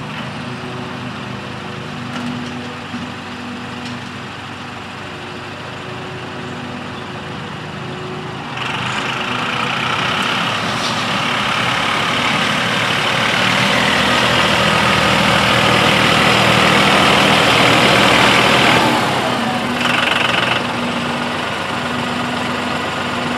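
Massey Ferguson 2607 tractor's diesel engine running as it works with its front loader. It gets suddenly louder about a third of the way in, then drops back down about three-quarters of the way through.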